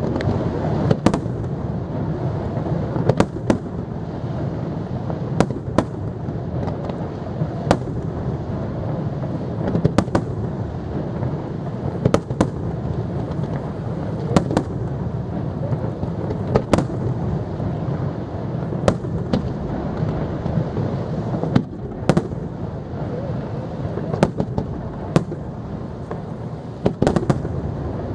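Aerial fireworks shells bursting in a display: sharp bangs, roughly one a second, over a continuous low rumble.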